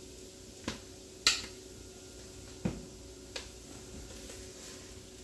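A few sharp clicks and knocks from utensils, a garlic jar and the cooking pot being handled, four in all, the loudest and highest about a second in, over a faint steady hum.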